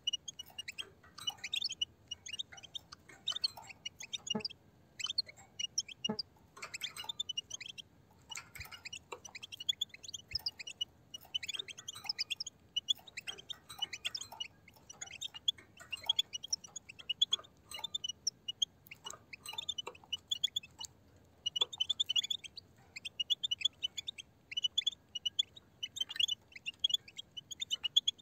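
A flock of European goldfinches calling: a continuous run of short, rapid twittering chirps, with a few faint clicks among them.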